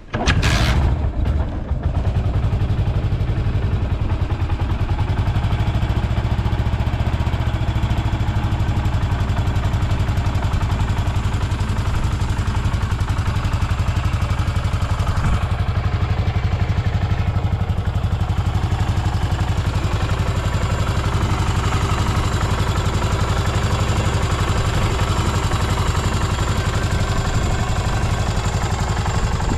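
Yamaha SR400's air-cooled single-cylinder four-stroke engine starting about half a second in, then idling steadily. It runs evenly, with no abnormal noise.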